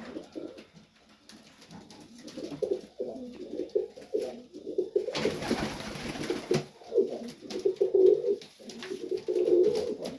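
Domestic pigeons (Serbian highflyers) cooing over and over in low warbling phrases, with a short burst of rustling noise about five seconds in.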